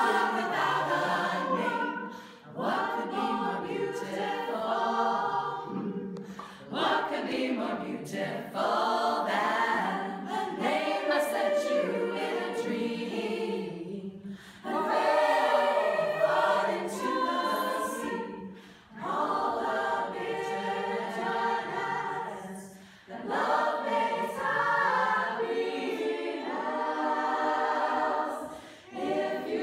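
Women's choir of about thirty voices singing a cappella, in phrases of a few seconds each, broken by brief pauses for breath.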